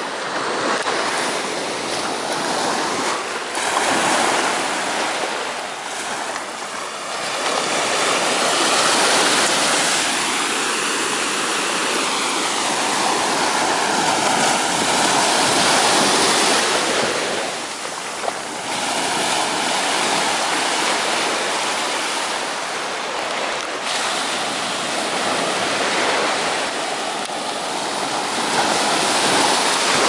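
Surf on a steep sandy beach: waves breaking and washing up the sand in a steady wash that swells and eases with each wave.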